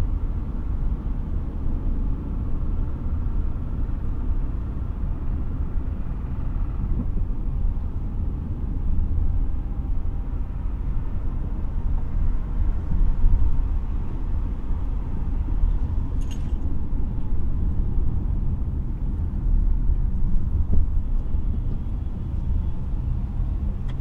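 Car being driven: steady low rumble of road and engine noise. One brief sharp sound about two-thirds of the way through.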